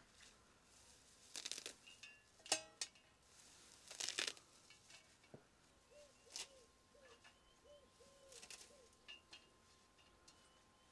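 Fresh garden herbs being picked by hand: a few short, quiet snaps and rustles of stems and leaves, with faint bird chirps between them.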